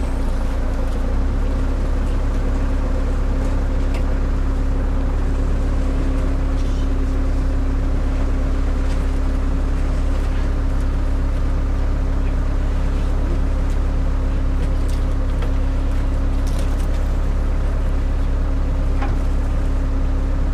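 JCB telehandler's diesel engine idling steadily, a loud low drone, with a few faint knocks from wooden crates being handled.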